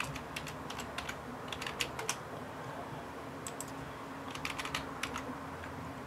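Typing on a computer keyboard in short bursts of quick key clicks with brief pauses between, over a faint steady hum.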